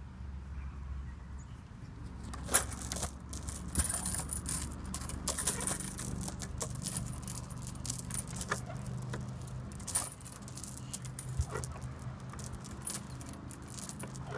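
Metal hooks and links on a swing-set bar clinking and rattling over and over as a child swings and hangs from the bar. The jingling starts about two seconds in, after a faint low hum.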